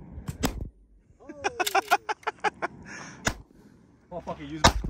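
Pistol-grip pump-action shotgun fired, with sharp bangs about three seconds in and again near the end, the second the loudest. A man's voice is heard between them.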